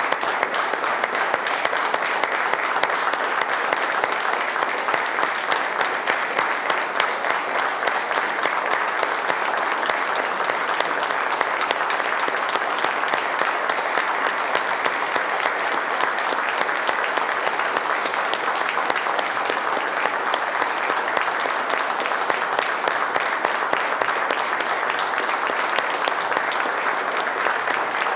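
Steady applause from a full chamber of legislators giving a standing ovation, many hands clapping at once without a break.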